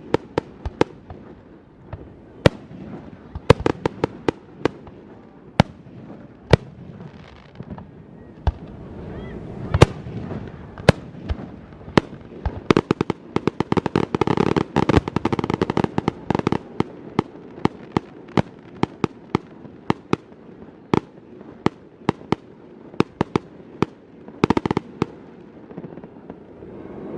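Fireworks going off: sharp bangs scattered throughout, with a dense run of rapid crackling reports from about 13 to 17 seconds in and a shorter cluster near the end.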